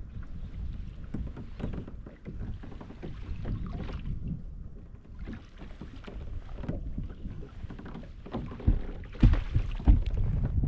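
Strong wind buffeting the microphone over water lapping against a kayak. A few heavy thumps come near the end.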